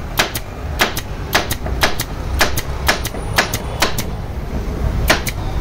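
Techno pneumatic stapler gun, air-fed from an oil-free compressor, firing staples into a wooden post: each shot a sharp double snap. About two shots a second, eight in a row, then a short pause and one more near the end.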